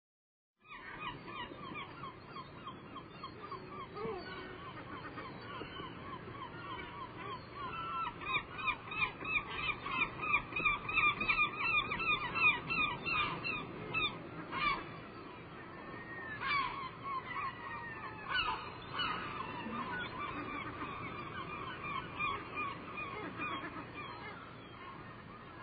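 A flock of geese honking: many short overlapping calls, starting suddenly just after the beginning and growing busiest and loudest from about a third of the way in to just past the middle.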